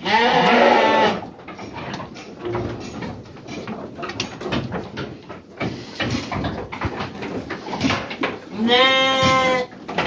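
Sheep bleating in a shed: one loud wavering bleat right at the start and another clear bleat near the end, with scattered light knocks and shuffling between them.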